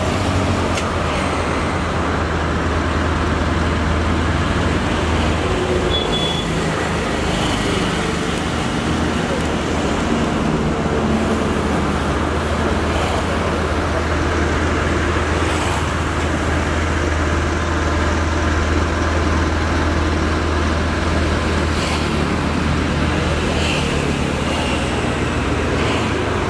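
A vehicle engine idling steadily close by, a constant low hum under road-traffic noise, with a few faint clinks.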